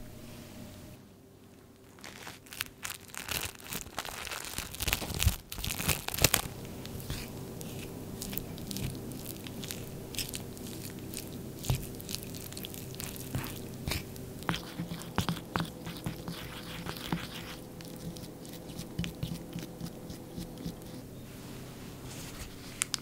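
Wooden spoon stirring shaved strawberry chocolate in a ceramic bowl, scraping and clicking against the bowl in an irregular run of small sounds. The run is loudest about four to six seconds in.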